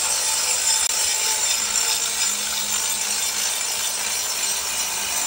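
Angle grinder cutting into a pale stone block: a steady, high-pitched grinding noise without break.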